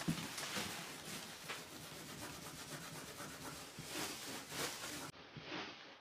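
Hand scrubbing of a wooden floor: a scrubbing brush or rag in a gloved hand rubbing back and forth across the boards in quick repeated strokes, a couple of strokes louder about four seconds in.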